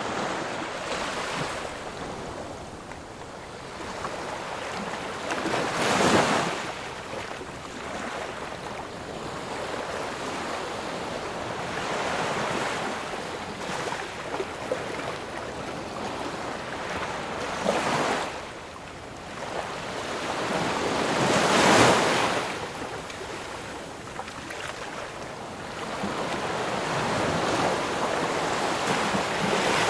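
Ocean waves breaking and washing up a shore in a continuous surf, with a few larger waves cresting about 6, 18 and 22 seconds in.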